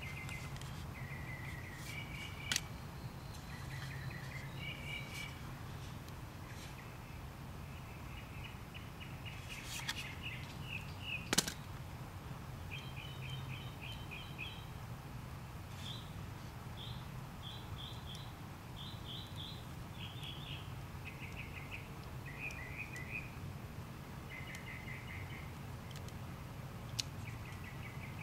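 Small birds chirping in short repeated trills of varying pitch, over a steady low background hum, with a few sharp clicks, the loudest about eleven seconds in.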